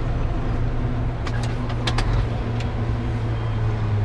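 Truck under way, its engine running with a steady low hum and road noise, heard from inside the cab. A few light clicks come around the middle.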